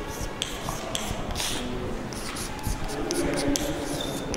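Chalk writing on a blackboard: short scratching strokes and taps coming at an irregular pace.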